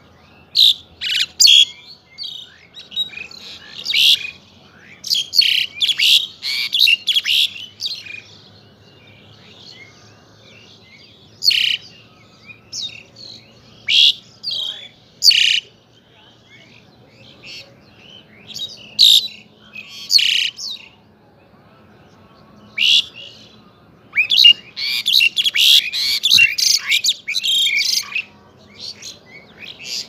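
Pied myna (Asian pied starling) singing in bouts of quick, varied whistles and chattering notes, with pauses of a few seconds between bouts.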